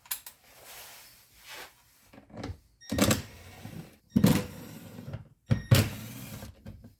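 Torx T30 screws being backed out of a car's inner door panel: a series of sharp clicks and clatters from the tool and screws, with rougher rattling between.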